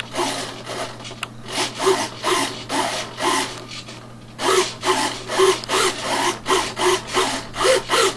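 Small RC servos driving the Super Cub LP's ailerons back and forth in a control check, a short whir repeated about two to three times a second as the transmitter stick is waggled, with a brief pause around four seconds in.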